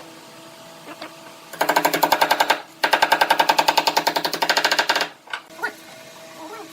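A small machine running in two bursts of rapid, even clatter, about ten strokes a second, the second burst longer, over a steady background hum.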